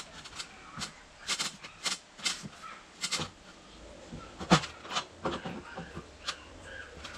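Irregular wooden knocks, clicks and clatters as timber is handled and set down, the loudest knock about four and a half seconds in.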